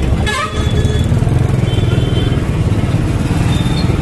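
Motorcycle engine running while riding through traffic, heard from the pillion seat as a loud, fast-pulsing low rumble.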